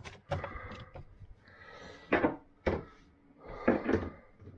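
Plastic food tubs being set down and shuffled on the glass shelves of an open refrigerator: a string of knocks and clatters, the loudest about two seconds in and again just before four seconds.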